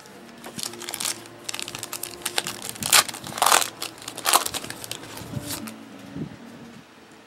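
Foil wrapper of a trading card pack crinkling as it is handled and torn open, in irregular crackles that are loudest about three to four and a half seconds in.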